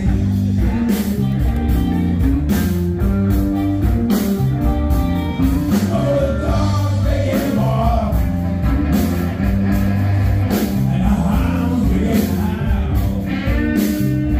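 Live band playing rock music through a PA, a singer over bass and drums.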